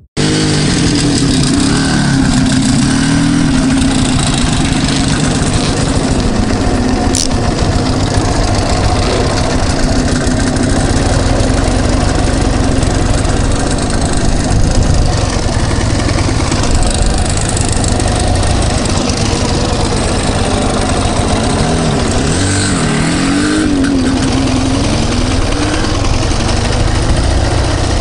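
Ural Tourist sidecar motorcycle's flat-twin engine running and pulling away, with an IZh Jupiter two-stroke motorcycle running close by. In the last third the revs rise and fall several times.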